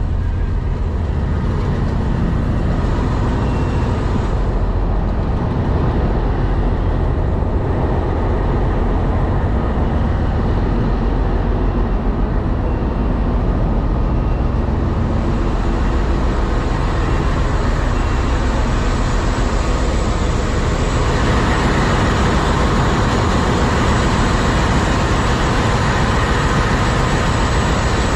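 Steady low engine rumble with a constant hiss over it; the hiss grows louder about three-quarters of the way through.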